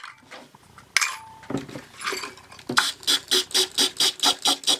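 Corroded metal battery contacts being worked in a small plastic cup of cleaning solution: a sharp click about a second in, then a fast, even run of short strokes, about four a second, from about three seconds in.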